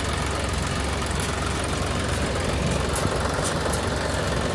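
John Deere 5050 E tractor's three-cylinder diesel engine running steadily as the tractor is driven, heard from the driver's seat.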